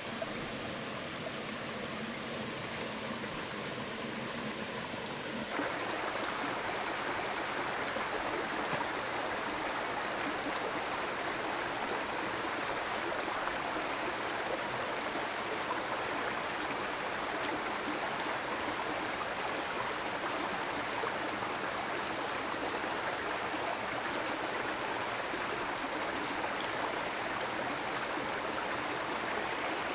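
Flowing stream water, a steady rush. It gets suddenly louder about five and a half seconds in, then holds level.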